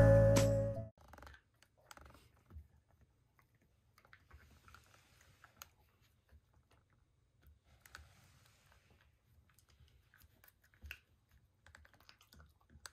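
Background music ends in the first second. After that a Jack Russell Terrier gnaws a chew stick, giving faint, scattered crunching clicks.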